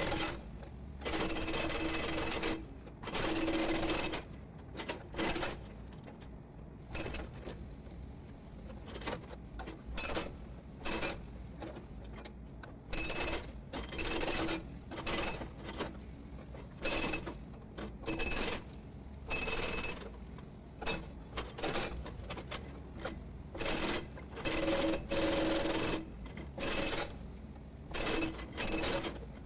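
Hydraulic breaker on a Volvo EC210D excavator hammering concrete pile offcuts in repeated short bursts of rapid blows, each burst with a metallic ringing, every second or two, over the steady drone of the excavator's engine.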